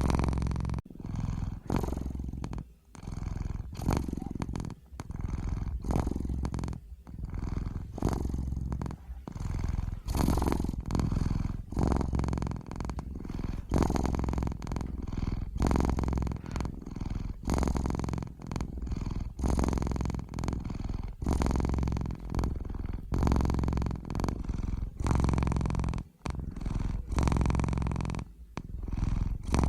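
Domestic cat purring close to the microphone: a steady low rumble that breaks off briefly between breaths, about once a second.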